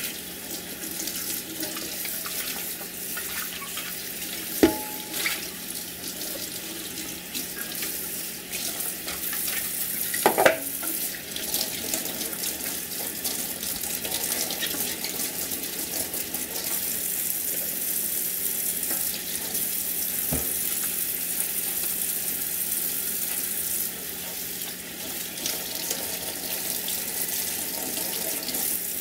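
Kitchen tap running into a stainless steel sink, the water splashing over an Instant Pot lid and its silicone sealing ring as they are rinsed. A few knocks sound against the sink, the loudest about ten seconds in.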